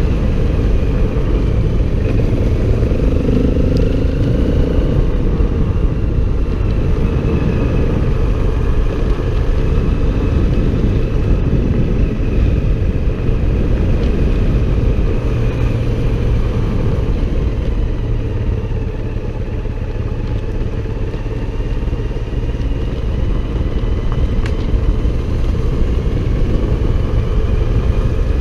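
A motorcycle running on the move, with a steady heavy low rumble and an engine note that slowly rises and falls as speed changes.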